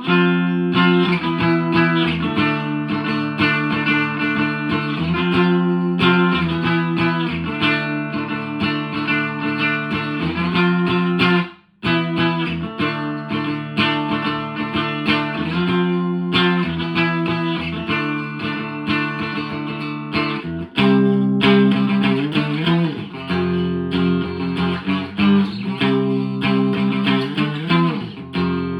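1983 Fender Squier JV Telecaster played through channel 1 of a 1963 Selmer Thunderbird Fifty valve amp with 1970s Celestion Greenback speakers, sounding chords continuously. The playing breaks off briefly a little under halfway through, and there are a few bent notes in the last third.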